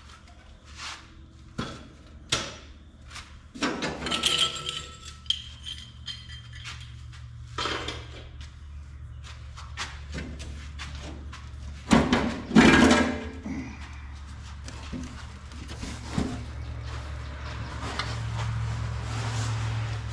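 Sheet-metal side panel of a tractor's hood being worked loose and lifted off: scattered metal clanks and knocks, loudest in a cluster about twelve seconds in, over a steady low hum.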